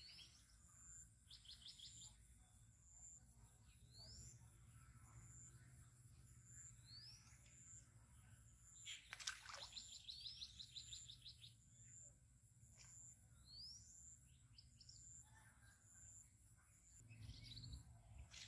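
Faint birds calling: a short rising whistled note repeated every three seconds or so, with rapid trills in between. A single sharp click about halfway through is the loudest sound.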